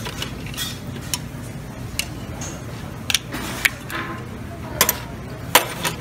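Mussel and clam shells clicking and clinking as a serving spoon scoops them from a metal steam tray onto a plate. There are about seven irregular sharp clacks, the loudest near the end, over a low steady hum.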